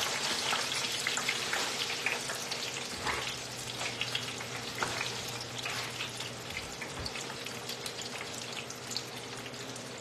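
French fries frying in a commercial deep fryer: a steady sizzle of hot oil with dense crackling pops that eases off gradually, over a faint low hum.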